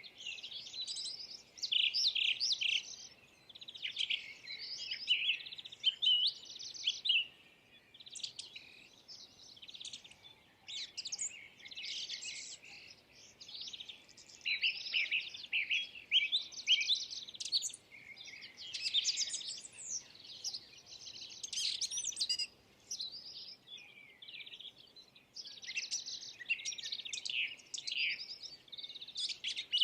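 Birds chirping and twittering: rapid runs of high chirps in clusters a second or two long, separated by short gaps.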